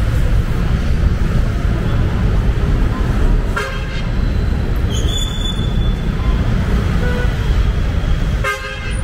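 Street traffic with a steady low rumble and two short vehicle horn toots, one a little over three seconds in and one near the end.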